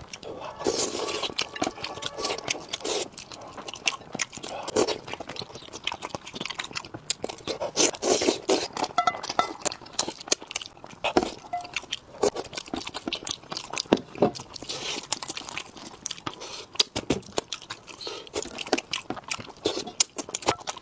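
Close-up eating sounds of fish curry: chewing and crunching, with wet, smacking mouth noises and irregular crackly clicks.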